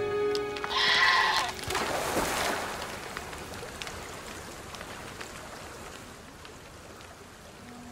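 A short bleat-like animal call about a second in over the tail of background music, then a surge of noise and the steady rush of white-water river rapids, slowly fading.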